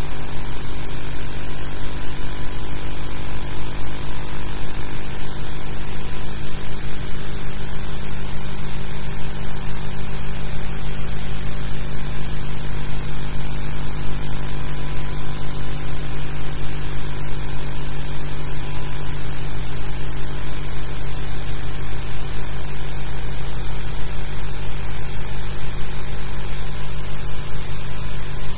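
Steady electrical hum with hiss, unchanging throughout.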